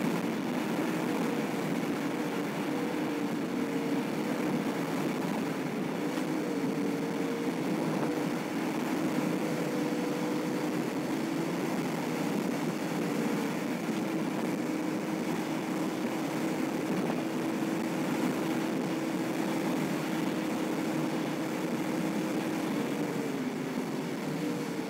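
Car engine hum and road noise heard inside the cabin while driving, a steady drone whose pitch shifts slightly now and then.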